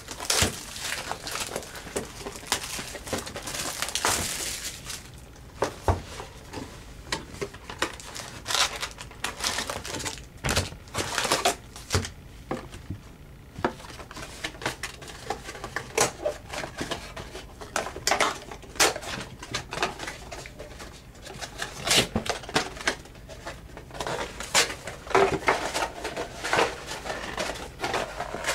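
A cardboard trading-card box being torn open and its foil-wrapped card packs handled and stacked on a countertop: crinkling, tearing of cardboard, and many light clicks and taps.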